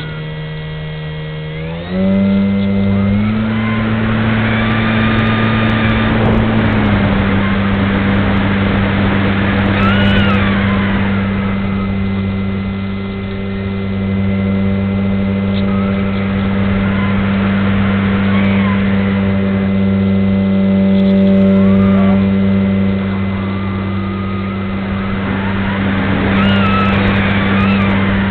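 Brushless electric motor and folding propeller of a Parkzone Radian Pro motor glider running under power, heard from a wing-mounted camera, with wind rushing past. The motor's hum steps up to a higher, louder pitch about two seconds in as the throttle is opened, then holds steady with small changes.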